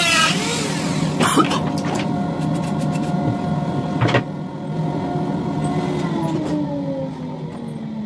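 Dremel rotary tool motor with a flex-shaft handpiece running at speed, with a couple of short knocks. Near the end its whine falls steadily in pitch as the motor winds down.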